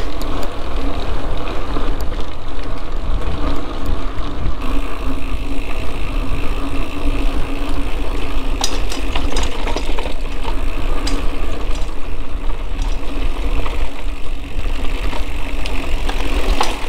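Mountain bike rolling along a dirt trail: a steady rumble of tyres and air on the ride-along microphone, with scattered clicks and rattles in the second half.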